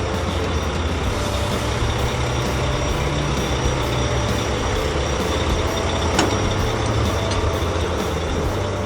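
Cartoon truck engine sound effect running steadily: a low engine drone with a constant hiss over it, and one short click about six seconds in.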